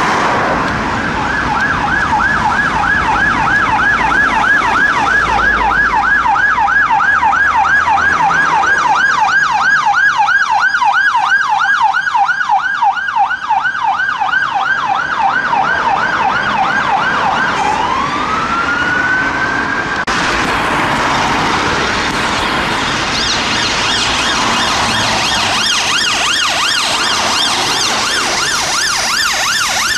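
Police car siren on a Peugeot 308 response car yelping rapidly, about four rising-and-falling sweeps a second, then breaking into one slower rising wail. After a sudden change about two-thirds through, a different, higher-pitched siren from a Honda CR-V ambulance rapid response car sounds in a fast repeating pattern over traffic noise.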